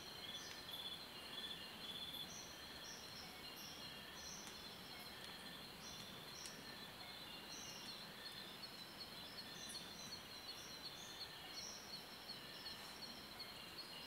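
Faint night-time insect chorus: a steady high buzz with short high chirps repeating about once a second.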